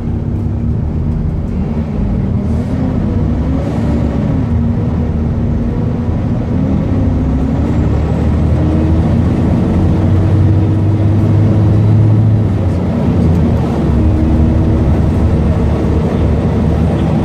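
Volvo D7C six-cylinder diesel engine of a Volvo B7TL double-decker bus, with its ZF Ecomat automatic gearbox, heard from inside the passenger saloon as the bus drives. The engine note climbs and falls a few times in the first seven seconds as it pulls through the gears, holds steady, then drops away about 13 seconds in.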